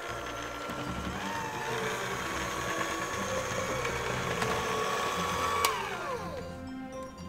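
Kitchen blender motor spins up about a second in, its pitch rising, and runs at a steady pitch. Near the end there is a sharp click and the motor winds down with a falling pitch.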